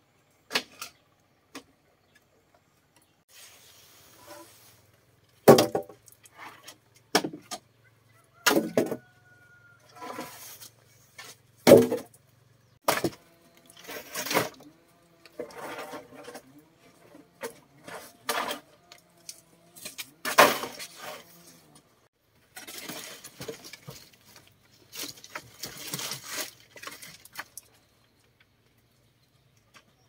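Irregular knocks and thuds, about half a dozen of them loud, with scraping and rustling between them.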